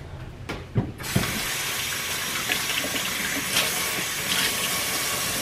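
Kitchen sink faucet turned on about a second in, after a few light knocks, and running steadily while hands are washed.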